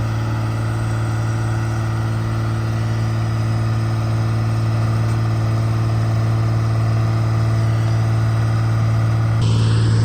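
Case 125B excavator's diesel engine running at a steady idle, a constant low hum. Near the end a higher rushing sound joins in.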